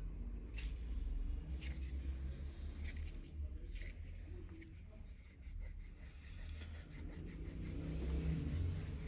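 Light scrapes and small clicks of hand tools working on a smartphone as it is taken apart, over a steady low hum.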